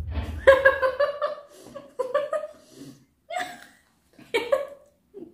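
Women laughing in several short bouts, with a low rumble dying away in the first second.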